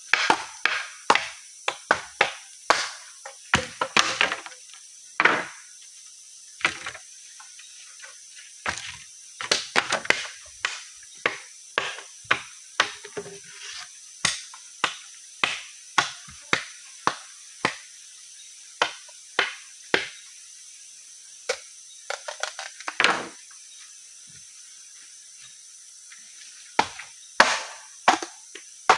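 Repeated sharp chopping blows on wood, struck irregularly about once or twice a second with short pauses between runs, over a steady high-pitched insect drone.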